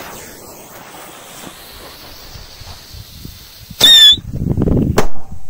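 A whistling firecracker's fuse hisses quietly on the ice. About four seconds in it goes off with a short shrill whistle and a loud crack, followed by splashing debris and a second sharp bang about a second later.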